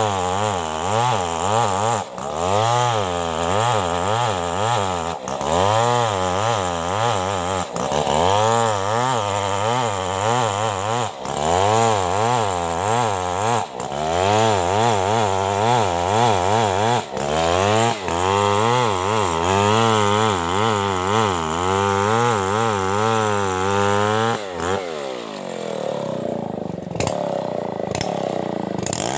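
Two-stroke chainsaw cutting into a coconut log, its engine speed swinging up and down as the chain bites under load. About 24 seconds in the engine drops back toward idle, then revs up again near the end.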